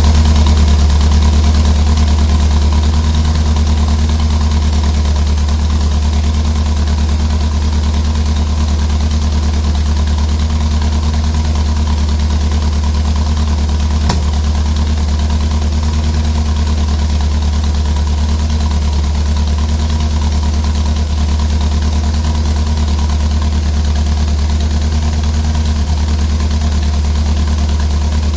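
Ford Pinto engine idling steadily with a misfire.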